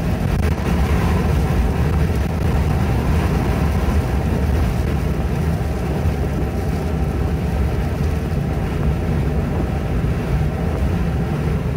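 Car driving on a highway, heard from inside the cabin: a steady low rumble of engine and tyre noise.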